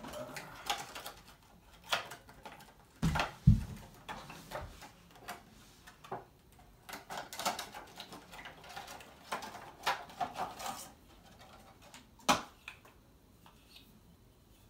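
Scattered clicks, taps and rustling as a wooden kendama's ball and handle are handled and strung, with a heavier thump about three seconds in and a sharp click a little after twelve seconds.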